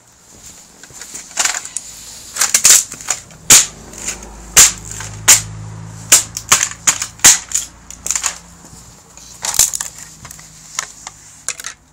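Plastic hubcap fragments being broken up: a quick series of sharp cracks and snaps, some in quick clusters, about a dozen loud ones in all.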